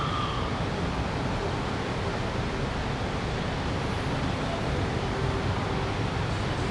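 Steady city street ambience: a continuous, even wash of traffic noise with a low rumble.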